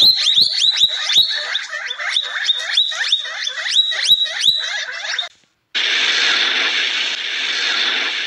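Coypu (nutria) eating bread: a fast run of short rising squeaks mixed with crunching clicks, about three a second, that stops abruptly a little over five seconds in. After a brief silence a steady hiss follows.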